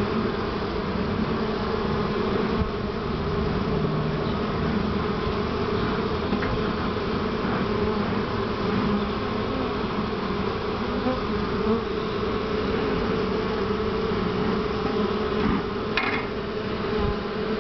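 Honey bees buzzing around the entrance of a feral colony in a tree cavity: a steady, dense hum with no letting up. A brief click near the end.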